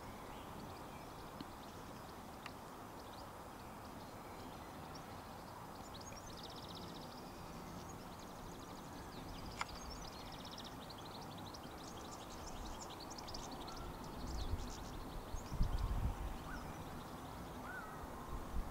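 Quiet garden ambience with a steady faint hiss, and a small bird twittering in fast high runs, once about a third of the way in and again past the middle. A single sharp click comes about halfway, and a few low bumps on the microphone near the end are the loudest sounds.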